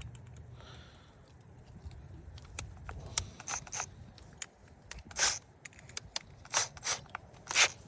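Hand tools and metal parts being handled during a blower motor swap: scattered clicks and a few short, sharp scrapes, the strongest about five, six and a half and seven and a half seconds in.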